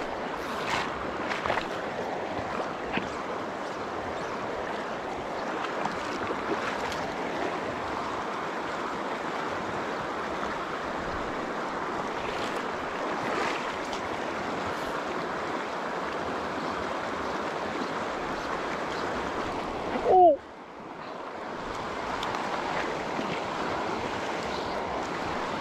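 Steady rush of a shallow, rocky river riffle. About twenty seconds in, a short, loud sound falling in pitch; the water noise then drops briefly and comes back.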